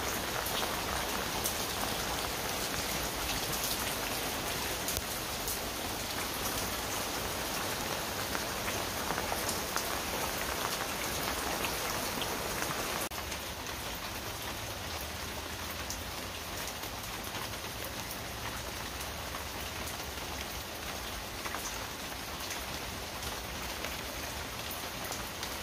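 Steady rain falling on wet concrete paving, puddles and a plastic channel-drain grate: a dense even hiss of drops, a little quieter from about halfway.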